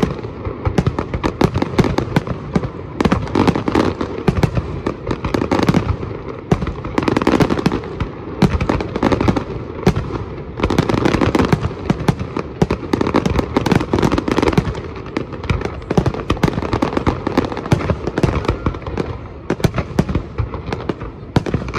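Fireworks display: a dense, unbroken barrage of shell bursts and crackling, with many bangs a second.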